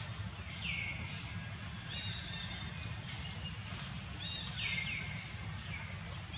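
Outdoor ambience: high chirping calls, each dropping quickly in pitch and then holding, repeat about once a second over a low steady background rumble, with two brief sharp chirps a little after two seconds in.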